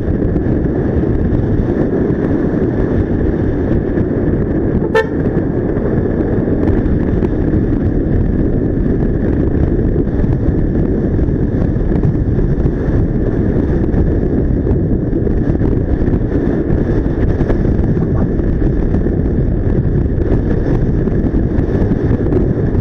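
Steady heavy wind buffeting on the microphone and road noise from a Yamaha XMAX scooter riding through traffic, with one short sharp click about five seconds in.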